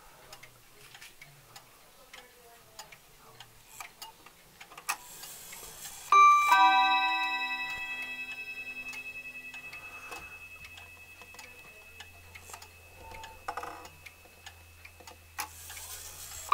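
Emil Schmeckenbecher weight-driven wall clock ticking faintly, then its chime rod struck once about six seconds in as the minute hand reaches the half hour. The struck tone rings on, fading slowly.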